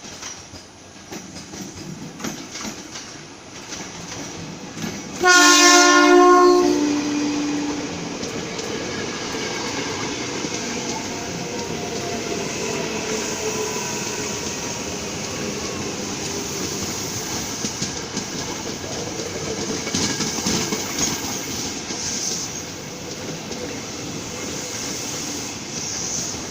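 Ex-Tokyo Metro 6000 series electric commuter train approaching with a rising rumble. About five seconds in it sounds its horn: a loud blast of two notes, the lower one starting a little later and holding until about eight seconds in. It then runs past with a steady rail noise that swells again around twenty seconds in.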